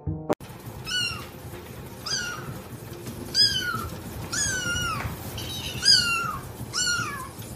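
A cat meowing over and over: six high-pitched meows about a second apart, each falling in pitch at its end.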